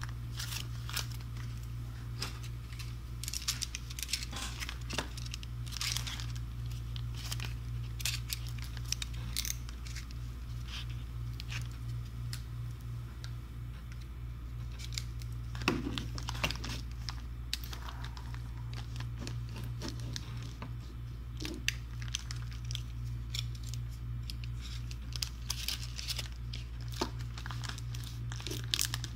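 Plastic anti-static pouch crinkling and crackling as it is handled and cut open with a utility knife, with irregular sharp crackles and scraping throughout. A steady low hum runs underneath.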